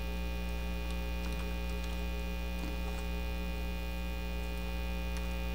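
Steady electrical mains hum with a stack of overtones, with a few faint computer keyboard key clicks scattered through it.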